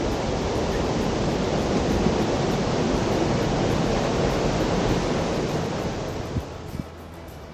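River water rushing and splashing over a low weir, a steady loud rush that fades away near the end.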